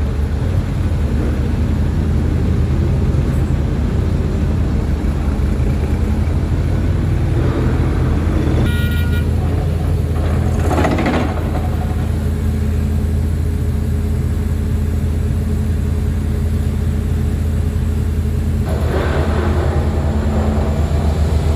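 Heavy diesel construction machinery running steadily under load, a deep continuous engine drone. About nine seconds in, a brief horn toot sounds, and around eleven seconds a short rushing noise rises over the engine.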